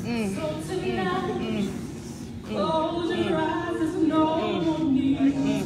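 Unaccompanied gospel singing, long held notes that bend up and down, with a brief dip about halfway through before the singing swells again.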